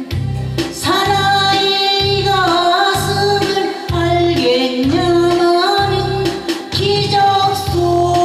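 A woman singing a Korean trot song live into a microphone, drawing out long held notes that slide between pitches, over a backing track with a steady bass beat.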